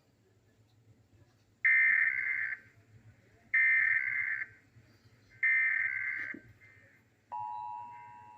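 Emergency Alert System SAME header: three bursts of digital data tones, each about a second long and about two seconds apart. Then the EAS two-tone attention signal (853 and 960 Hz together) starts and holds steady.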